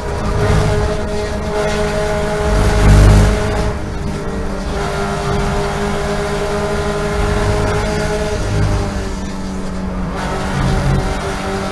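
Toyota GT86 race car's 2.0-litre flat-four engine heard from inside the cockpit, running steadily at high revs in fifth gear under throttle. A brief, loud low rumble comes about three seconds in.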